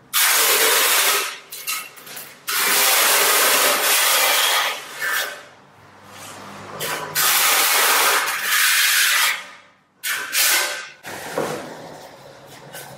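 Steel trowel scraping and spreading tile adhesive across the back of a long wood-look plank tile, in several long scrapes with short pauses between them.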